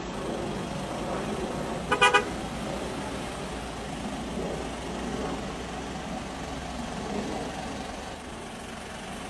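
A vehicle horn gives three quick short toots about two seconds in, over steady vehicle and road noise.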